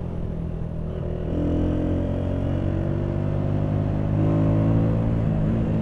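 Motorcycle engine running under way, heard from the rider's own bike; its note rises about a second and a half in and swells again near four seconds as the rider gives it more throttle.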